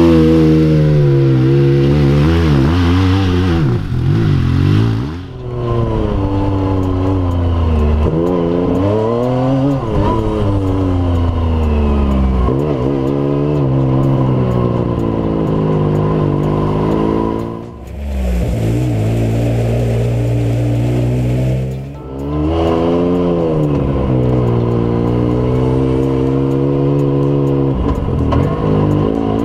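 Yamaha YXZ1000R's three-cylinder engine revving hard under way. The pitch climbs through each gear and drops at each shift of its sequential gearbox.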